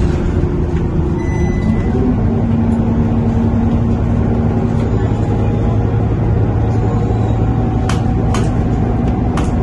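Scania K230UB bus running under way, heard from inside the cabin: a steady engine and drivetrain hum with the drone of a radiator fan that is uncommonly loud and weird. A few sharp clicks sound near the end.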